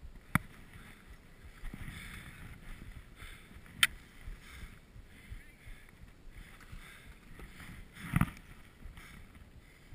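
Skis hissing and swishing through deep powder snow in uneven swells, with a couple of sharp clicks and a louder rush of snow about eight seconds in.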